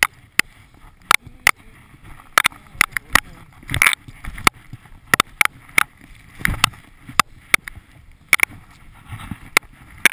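Skiing through deep powder snow: irregular sharp clicks and knocks of the skis and poles, about one to three a second, over a soft hiss of snow, with a few louder low whooshes of snow spray.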